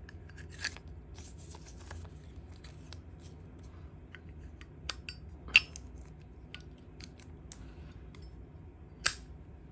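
Scattered light clicks and a few sharp metal clacks from a Zippo lighter being handled, the loudest just past halfway.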